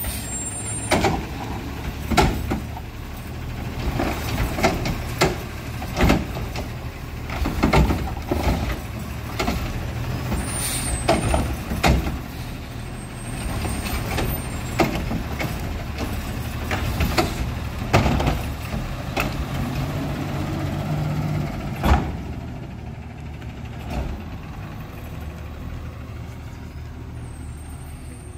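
Front-loader recycling truck with a Curotto-Can arm emptying carts one after another: the diesel engine runs steadily under repeated clanks and bangs as the carts are lifted, shaken and knocked against the hopper, the loudest about 22 seconds in. Air brakes hiss briefly about ten seconds in and again near the end, and the truck grows quieter over the last few seconds as it pulls away.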